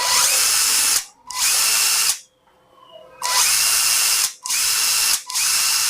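Cordless drill motor run with no load in five short trigger bursts of about a second each, whirring up and stopping abruptly as the electric brake catches.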